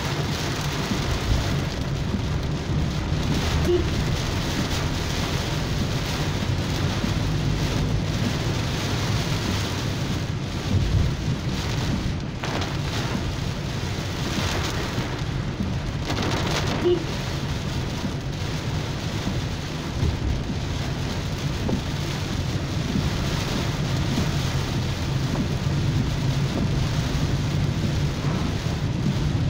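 Heavy rain pelting a car's windscreen and roof, heard from inside the moving car, over a steady low drone of the car on the wet road. A few short knocks stand out now and then.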